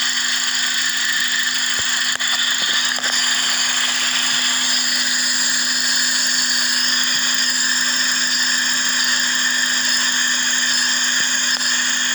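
A steady hiss of air being sucked in through the EVAP purge line at the charcoal canister of an idling Suzuki Swift, over a low steady hum. The purge valve is stuck open, making a vacuum leak that causes the lean condition and rough idle.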